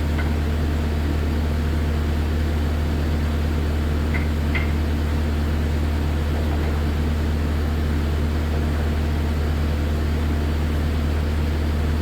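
Kubota SVL90 track loader's diesel engine running at a steady idle, a constant low hum. A couple of faint light clicks come about four seconds in.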